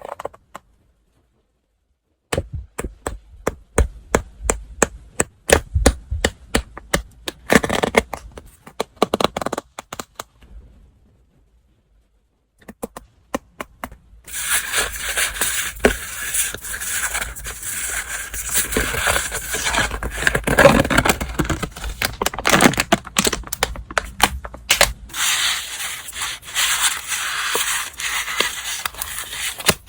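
Crinkly paper and wrapping being handled and unwrapped. First comes a run of sharp crackles and clicks, then a pause, and from about halfway there is continuous rustling and crinkling, with a brief break near the end.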